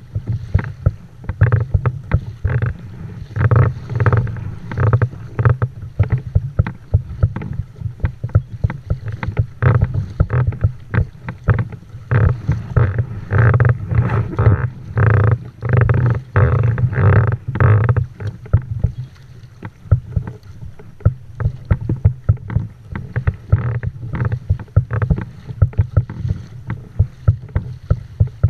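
Kayak moving through choppy sea: water slapping and splashing against the hull in quick, irregular strikes, over a steady low rumble of wind on the microphone.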